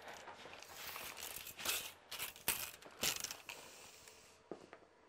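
Handling noise as a steel tape measure is pulled out to set the measuring microphone one metre from the speaker: rustling and scraping with a few sharp clicks, the loudest a little under two, two and a half and three seconds in.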